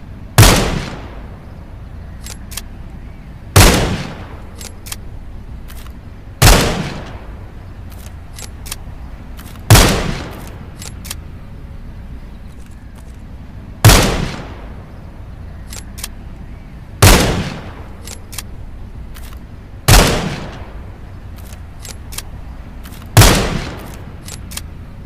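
.22 rifle firing single shots, eight in all, about three seconds apart, each with a short ringing tail. Faint small clicks sound between the shots.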